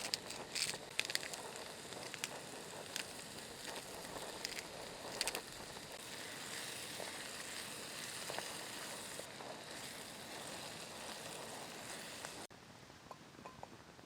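Crackling with scattered sharp snaps and a steady sizzling hiss, as in campfire cooking. About twelve and a half seconds in it cuts suddenly to a quieter scene with a few light metallic clinks.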